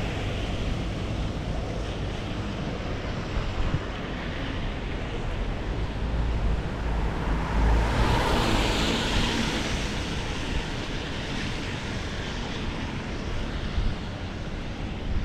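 Windy, rainy street ambience: steady hiss of rain and traffic with strong wind buffeting the microphone, a gust swelling with a deep rumble about eight seconds in.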